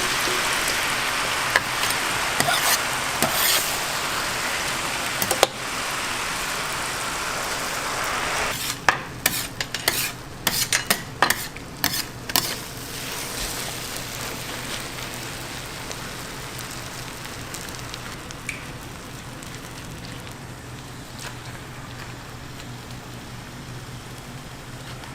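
Food sizzling as it fries in a hot pan, with a run of quick clicks and taps of a utensil against the pan about nine to twelve seconds in; the sizzle then grows quieter.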